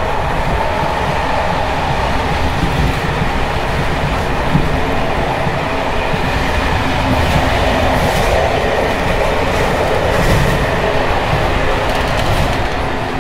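Inside a Czech Railways Bd264 passenger coach running at speed on rough jointed track: a loud, continuous rumble and rattle from its Görlitz V bogies, with clickety-clack over the rail joints. The bogies are worn, long overdue for maintenance, and their brake rigging bounces and clatters, which makes the ride very noisy.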